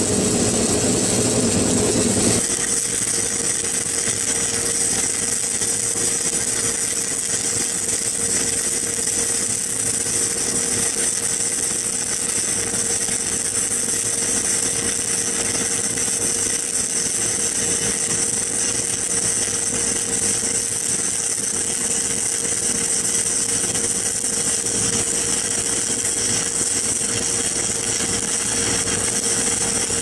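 Stick (shielded metal arc) welding arc burning a 1/8-inch Hobart hard-surfacing electrode on DC electrode negative while laying a hardfacing bead: a steady high hiss.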